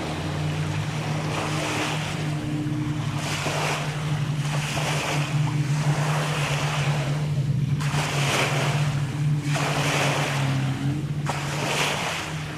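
Small sea waves breaking and washing up the sand at the water's edge, swelling and fading every second or two, over a steady low drone.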